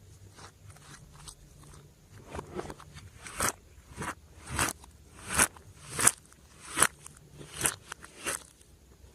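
Glossy slime being squeezed and pressed by hand, giving a run of sharp popping crackles. The pops start soft and become loud from about a third of the way in, coming roughly every two-thirds of a second.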